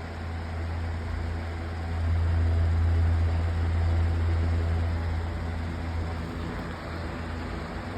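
Lasko 18-inch oscillating table fan running on its new, lighter replacement blade: a steady rush of air with a low hum. It grows louder about two seconds in and eases off around six seconds in.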